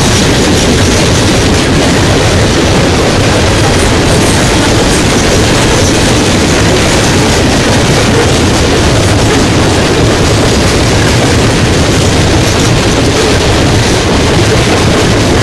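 Fully loaded coal hopper cars of a Norfolk Southern freight train rolling past: a loud, steady rumble of steel wheels on rail.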